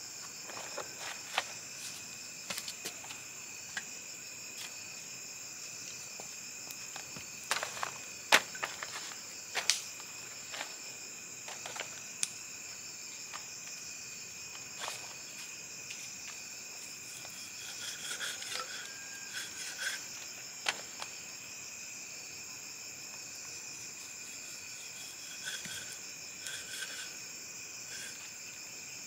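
A knife cutting raw pork on a wooden block, with scattered sharp knocks as the blade meets the wood, the loudest cluster about eight to ten seconds in. Under it runs a steady, high-pitched chorus of insects, with a few short repeated chirps in the second half.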